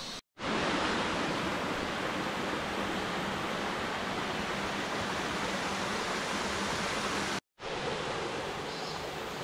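Steady rush of a mountain stream's flowing water, an even hiss with no single tone, broken off for an instant twice, near the start and about seven seconds in.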